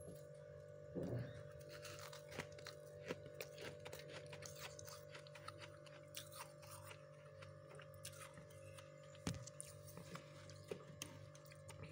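Faint, crisp crunching and crackling of powdery freezer frost being squeezed and scooped, many small irregular crunches, over a steady hum.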